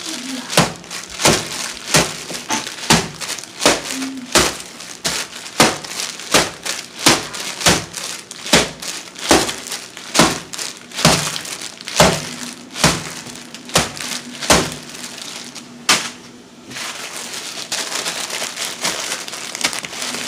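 A block of dry instant ramen noodles being crushed by hand inside its sealed plastic wrapper, sharp crunches coming about twice a second. Near the end the crunches give way to a steady crinkling of the wrapper.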